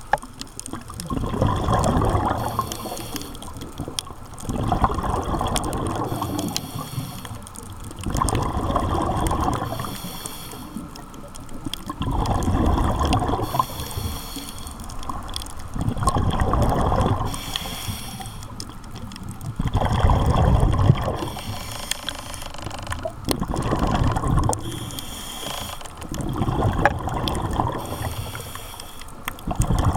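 Scuba diver breathing through a regulator underwater, about eight breaths. Each breath is a short high hiss of the regulator on the in-breath, followed by a bubbling rush of exhaled bubbles lasting about two seconds, roughly every three and a half seconds.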